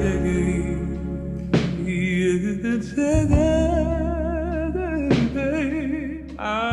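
Slowed-down, reverb-heavy soul-pop ballad: a woman's voice singing long held notes with vibrato over a steady low bass.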